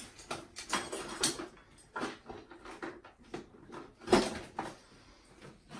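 Irregular knocks and clatters of tools and metal fittings being handled, with the loudest knock about four seconds in.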